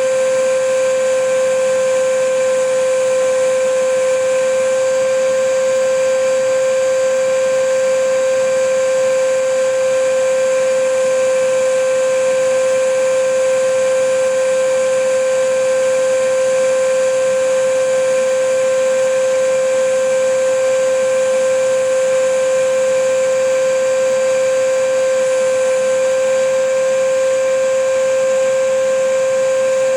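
Vacuum cleaner running continuously: a steady motor whine at one unchanging pitch over an even rush of air.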